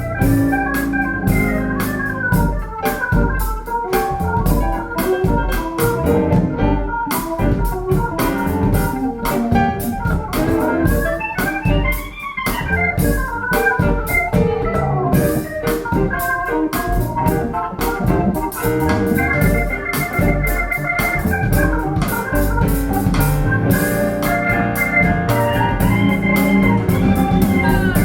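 Instrumental passage of a song led by organ-like keyboard chords over a steady beat, played back through Wharfedale Linton Heritage loudspeakers.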